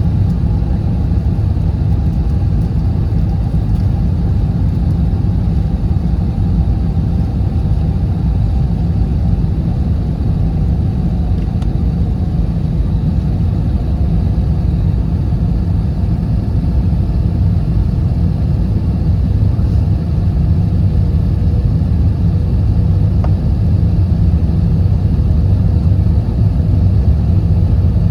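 Airliner cabin noise during the descent to landing: a steady low rumble of engines and airflow, growing slightly louder near the end.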